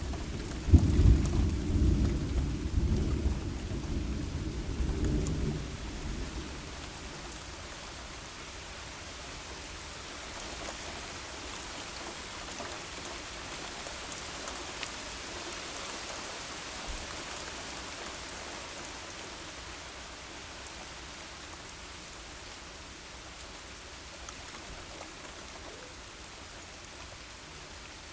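A clap of thunder breaks sharply about a second in and rolls on for about five seconds over heavy rain. After it the rain falls alone as a steady hiss.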